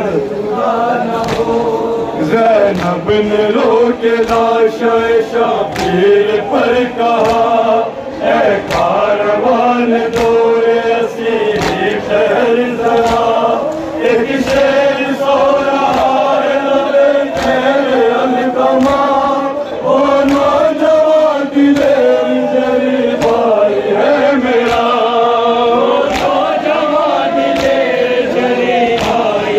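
Men chanting a noha, an Urdu mourning lament, in unison behind a lead reciter on a microphone. Sharp regular strokes, a little under one a second, run under the chant: matam, open hands striking chests.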